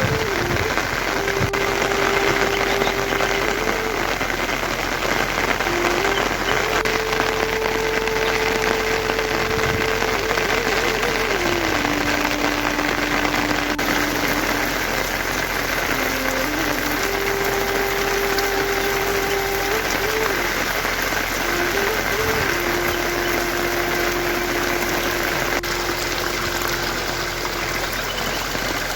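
Heavy rain falling steadily, with a single low tone over it that holds for a few seconds at a time and then steps to a new pitch.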